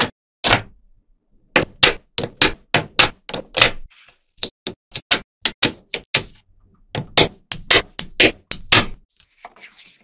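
Small magnetic balls clicking sharply together as a sheet of them is handled, in quick runs of about four clicks a second with short pauses between runs. A soft sliding rustle follows near the end.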